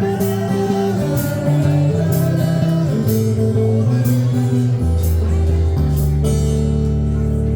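Live rock band playing an instrumental passage: guitar and bass chords over drums, with a cymbal struck about once a second.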